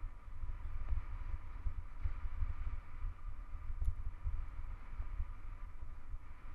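Wind buffeting the microphone as a hardtail mountain bike rolls down a gravel dirt road, with a faint steady hiss of the tyres and a single light tick about four seconds in.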